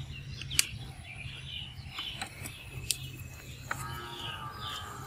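Birds chirping in short, repeated calls over a steady low hum of outdoor background noise, with a few sharp clicks, the loudest about half a second in.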